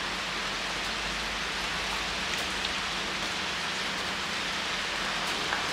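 Steady rain falling on a wet street, an even hiss with no breaks.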